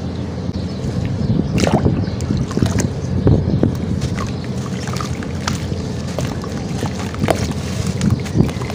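Hands crumbling and swishing a wet sand-cement lump in a plastic tub of water: steady water sloshing with scattered sharp crackles as the chunk breaks apart.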